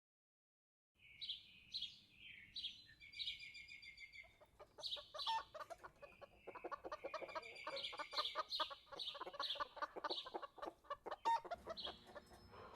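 Birds calling: repeated high chirps, joined about four seconds in by a rapid, dense stream of short clucking calls.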